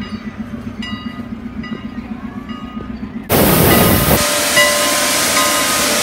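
Steam hissing loudly from the cylinder cocks of a 1910 2-6-0 Mogul steam locomotive as it moves off. The hiss starts suddenly about three seconds in, after a quieter stretch of background.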